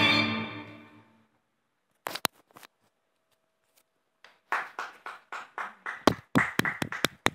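Violin music fading out, then after a short pause a few light clicks, followed by about three seconds of close hand claps, separate and fairly quick at about four a second.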